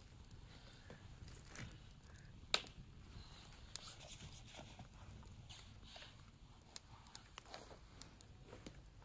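Faint, scattered crackles and snaps of dry twigs from a newly lit campfire, with sticks being laid on it; the sharpest snap comes about two and a half seconds in.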